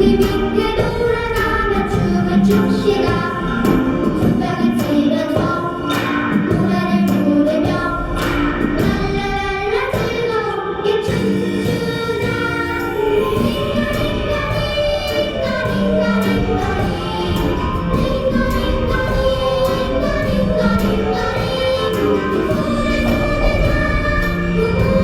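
Background music: a song with several singing voices, choir-like, over instrumental accompaniment.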